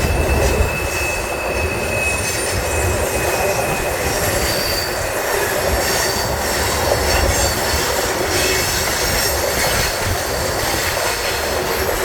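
Train cars rolling past close by: a steady loud rumble and rattle of wheels on rail, with thin high-pitched wheel squeal coming and going, most marked in the first few seconds.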